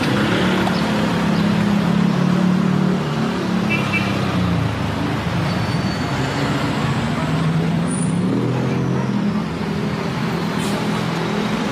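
Road traffic: cars and other motor vehicles driving past close by, over a steady road noise. Engine hum swells as a vehicle passes in the first few seconds, and again about eight seconds in.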